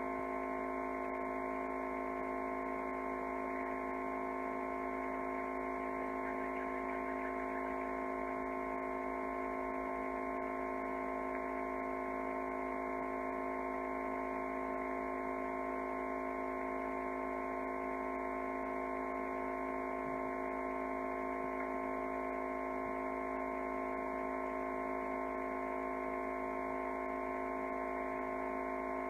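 Steady electrical hum made of several constant tones, unchanging throughout, with no other sound.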